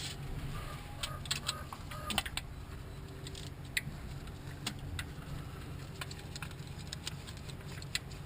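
Scattered small metallic clicks and clinks of hand tools and parts being handled, in a quick cluster early and singly after, over a steady low hum.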